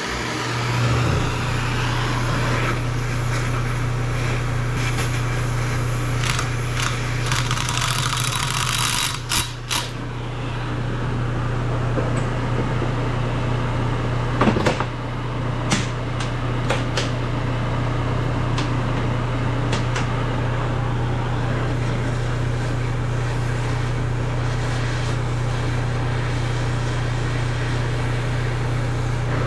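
Shop exhaust fan switched on, then running with a steady low hum. A hiss dies away about nine seconds in, and a few sharp metallic clicks and knocks follow over the next several seconds.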